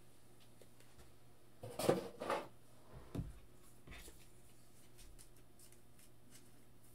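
Quiet room tone with a faint steady hum, broken by a few short soft rustles and taps about two, three and four seconds in as trading cards and card packs are handled.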